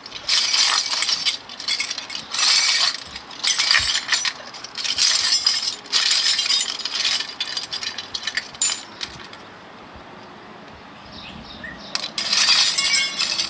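Metal wrenches and sockets clinking and rattling as they are sorted through, in a run of short clattering bursts. A quieter stretch follows before another burst near the end.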